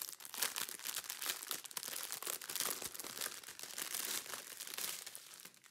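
Clear plastic packets of diamond-painting drills crinkling as they are handled and turned over, a dense run of small crackles that fades out near the end.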